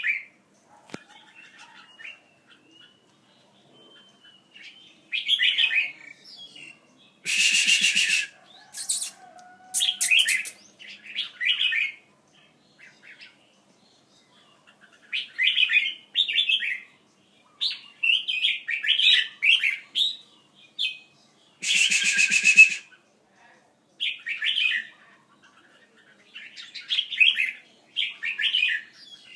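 Birds chirping in short repeated bursts, with two louder, harsh squawks, one about eight seconds in and one about twenty-two seconds in.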